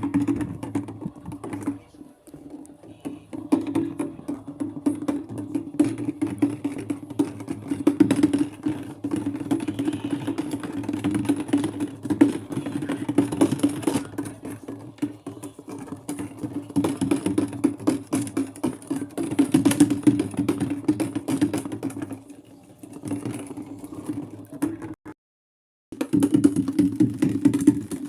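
Maytag washing machine running its delicate cycle, a steady hum with a fast clicking rattle. The sound cuts out completely for about a second near the end.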